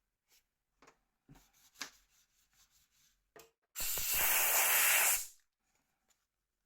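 A can of compressed air sprays one loud hiss lasting about a second and a half, blowing dust out of the phone's parts. Light handling clicks and taps come before it.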